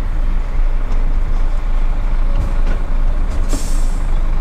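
Inside the cab, the Iveco Stralis 500 tractor unit's Cursor 13 straight-six diesel runs steadily while driving, a low rumble with road noise. A short hiss comes about three and a half seconds in.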